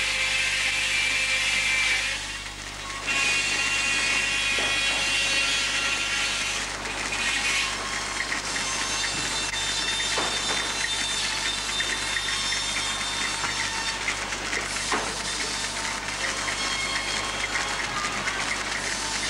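Belt-driven sawmill machinery running: flat drive belts and pulleys turning, with a steady whine and hiss. The level dips briefly about two seconds in, and there are a couple of single knocks later on.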